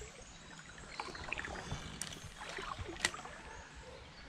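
Shallow stream water sloshing and trickling, with two sharp clicks about two and three seconds in.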